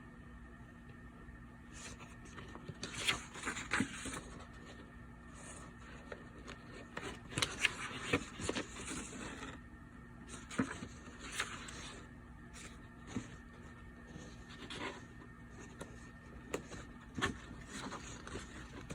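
Pages of a paper manual being turned and handled: scattered soft rustles and taps, with a faint steady hum underneath.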